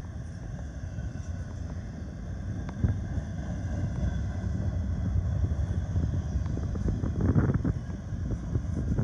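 Double-stack intermodal freight cars rolling past on the rails: a steady low rumble of wheels with scattered clicks, growing louder near the end.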